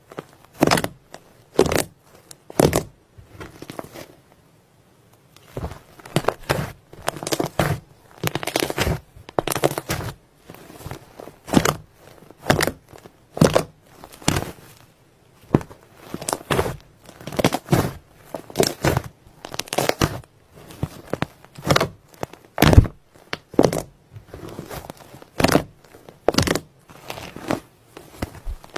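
Slime being worked by hand: a long, irregular run of short, wet-sounding presses and squeezes, about one or two a second, with a brief pause about four seconds in.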